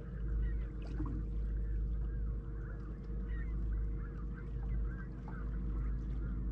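A large flock of birds calling continuously, many overlapping calls at once, over the steady hum of the boat's motor running at trolling speed and a low rumble.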